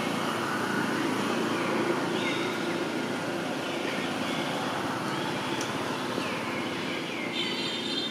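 Steady outdoor background rumble, with short high falling chirps recurring every second or so.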